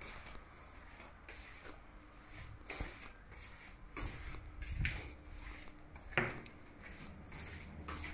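Faint, irregular taps, thumps and rustles of footsteps and handling noise from a hand-held phone carried through rooms, with a duller thump about five seconds in and a sharp click a little after six seconds.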